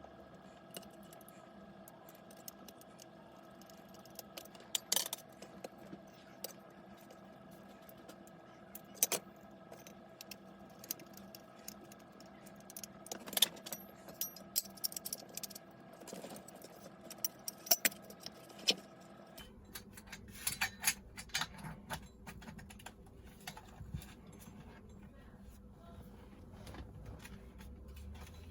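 Small metal parts and tools clinking and tapping now and then as they are handled, over a faint steady hum that shifts lower about two-thirds of the way through.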